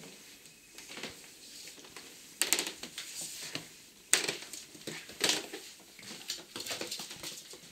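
Irregular knocks, clicks and rustling, with a few louder thumps, from a handheld camera being carried and handled while someone walks across a hard floor.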